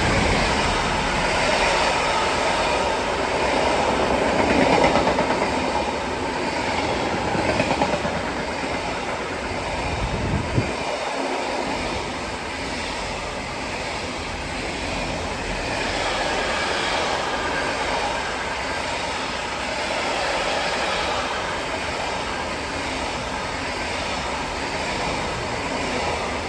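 A train passing, with a steady rumble of wheels on rails throughout. It is loudest in the first eight seconds or so.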